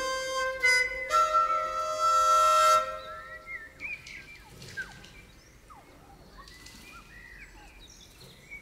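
Contemporary jazz ensemble passage: wind instruments hold overlapping sustained notes that stop about three seconds in. After that comes a quiet stretch of scattered short chirping glides.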